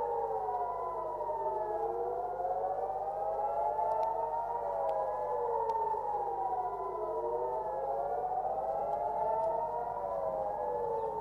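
Several air-raid sirens wailing at once, each rising and falling slowly out of step with the others, sounding a warning of incoming fire.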